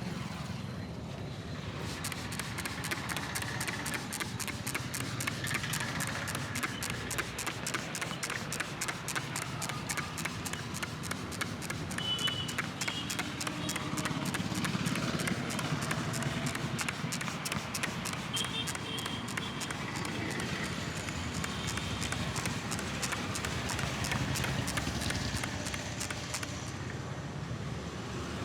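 Massage tapping: hands striking a person in a quick, even rhythm of several taps a second, which starts about two seconds in and stops near the end, with steady street traffic behind.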